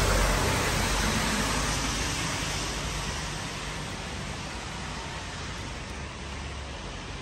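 Steady rushing outdoor street noise, loudest at the start and easing over the first three seconds.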